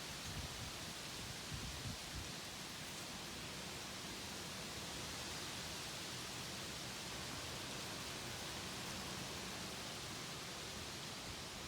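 Wind blowing steadily through trees, a dry hiss of rustling leaves, with a few low buffets of wind on the microphone in the first two seconds.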